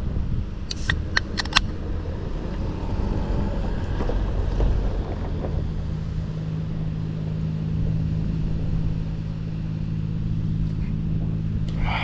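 A steady low mechanical hum, with a few sharp clicks about a second in.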